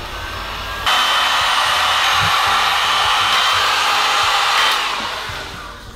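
Handheld electric heat gun switched on about a second in, blowing a steady rush of hot air with a faint high whine, then fading out near the end.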